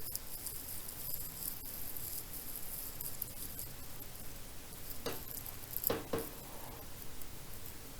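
Three sharp knocks about five to six seconds in, over a faint steady hiss: a pneumatic 18-gauge brad nailer firing brad nails into door casing.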